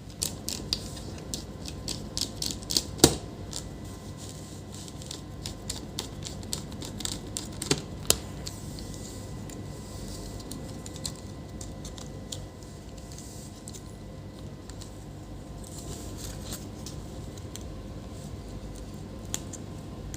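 Small clicks and taps of hard plastic laptop parts and screws being handled and fitted together while a laptop is reassembled. The clicks come thick and fast in the first several seconds, with louder knocks about three seconds in and again around eight seconds in, then give way to quieter, sparser handling.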